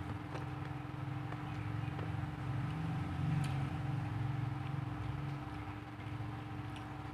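Steady low rumble with a constant hum and a few faint, scattered clicks, swelling slightly about three seconds in.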